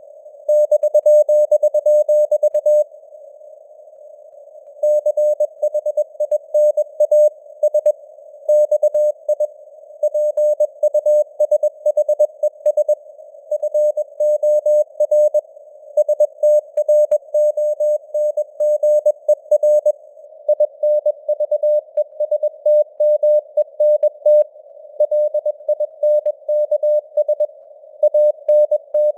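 Morse code at 21 words per minute: a single mid-pitched tone keyed on and off in dots and dashes, over a narrow band of hiss like a receiver's noise, with simulated fading of the signal strength (QSB). About three seconds in there is a pause of about two seconds between words.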